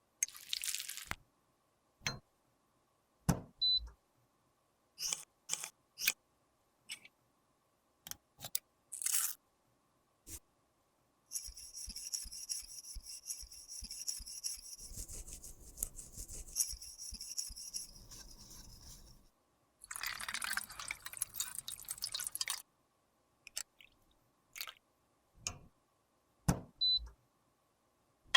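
Makeup repair handling sounds: scattered sharp clicks and taps of tools and containers, a steady rasping stretch of about eight seconds in the middle, and a shorter noisy burst soon after.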